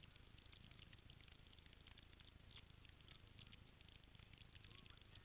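Near silence: faint outdoor background with a low rumble and scattered light ticks.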